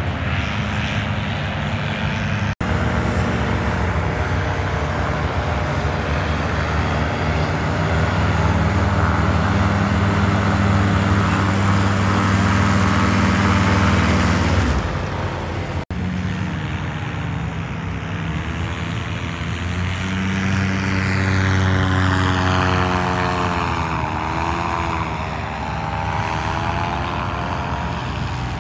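Small propeller engines of paramotors and an ultralight aircraft running steadily at power, broken by two brief gaps. Near the end the engine pitch of a paramotor dips and rises again as it flies past.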